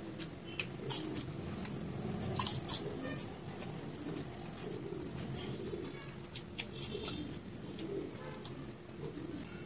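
Eating by hand: fingers mixing rice on a plate and wet mouth smacks while chewing, heard as a run of sharp clicks and smacks, thickest in the first three seconds.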